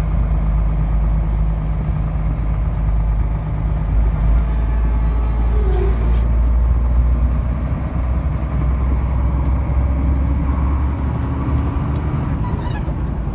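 Truck engine running steadily under way, heard inside the cab as an even low drone with road noise.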